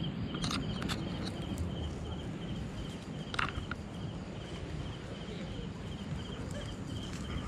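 A night insect chirping in a steady, fast repeating rhythm, with a few sharp knocks and clicks from handling the folding lift net's frame, the clearest about three and a half seconds in.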